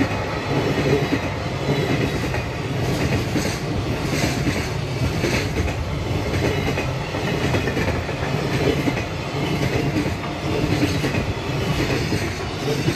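Freight train of container flatcars rolling past, steel wheels clattering over the rail joints in repeated clicks over a steady rumble, with the last wagon going by near the end.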